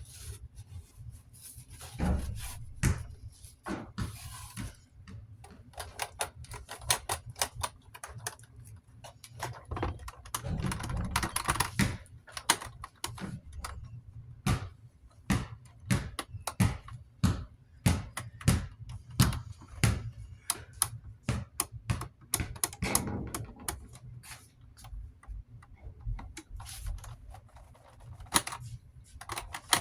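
Irregular clicks and knocks of fan parts being handled and cleaned on a work surface, with a few short stretches of rubbing or wiping.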